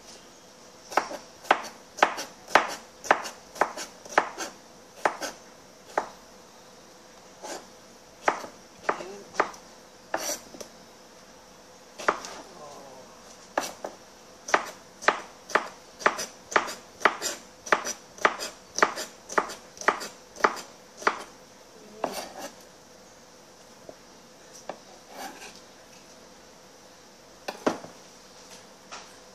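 Knife chopping cucumber on a plastic cutting board: sharp knocks in runs of about two a second, broken by a few short pauses.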